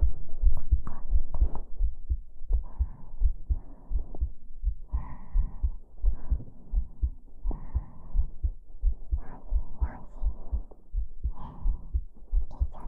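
A person's heartbeat heard close up, a steady run of low thumps, with soft breathy sounds rising over it every couple of seconds.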